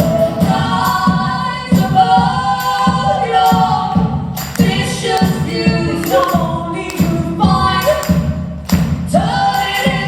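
Live folk-rock duo: voices singing in close harmony over a steady, strummed, percussive accompaniment, with heavy cave reverberation.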